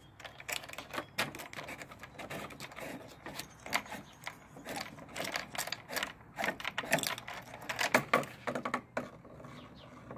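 Quick, irregular clicking and rattling as the threaded PVC breech cap of a homemade compressed-air cannon is gripped and unscrewed to open the breech. The clicks are loudest near the end.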